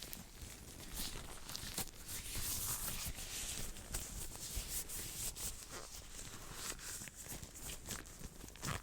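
Hands rubbing, brushing and moving quickly right against the microphone: a dense, irregular run of soft swishes and small crackles, brighter and hissier about two to four seconds in.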